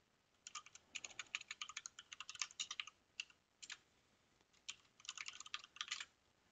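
Faint typing on a computer keyboard: a quick run of keystrokes, a few single taps, then another quick run that stops about six seconds in.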